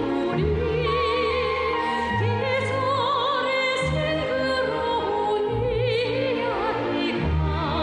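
A singer holding long notes with a wide vibrato over instrumental accompaniment, its bass stepping to a new note every second or two.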